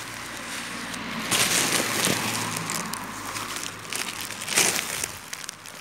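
Thin plastic carrier bag rustling and crinkling as litter is picked up from dry grass. It is loudest for about a second starting a second and a half in, with another short loud crinkle near the end.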